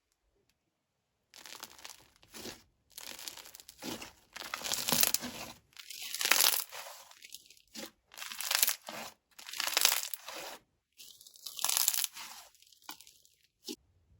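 Hands squishing and working a Cucumber Melon hand-scrub slime, giving a series of crunching bursts, each about a second long, after about a second of silence.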